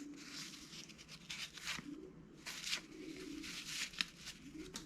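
1981 Topps cardboard baseball cards being leafed through by hand, a string of soft papery swishes and scrapes as each card slides off the stack.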